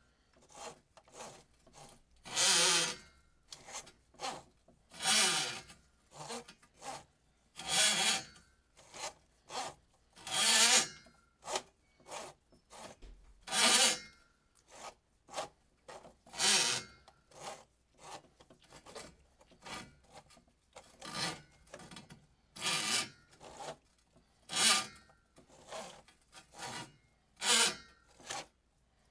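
Steel cable of a power drain auger being drawn back out of the drain line, rasping against the pipe in repeated strokes, a louder one about every two to three seconds with smaller scrapes between.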